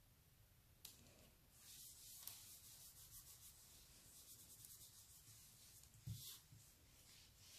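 Faint papery rustle and scratching of fingers rubbing a freshly glued paper oval flat onto a card layer, with a short tap about a second in and a brief louder scrape near the end.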